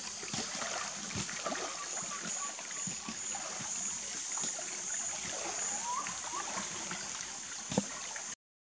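Rainforest insects trilling in a steady high-pitched chorus with a faint regular pulse, over soft water sounds and small clicks, with a couple of short bird calls; the sound cuts off suddenly near the end.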